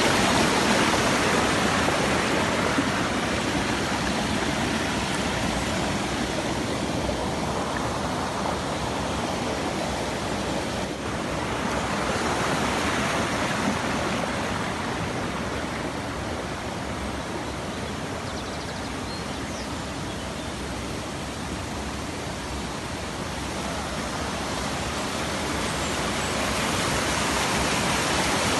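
Hewainna waterfall rushing, a steady roar of falling water with a brief dip about eleven seconds in.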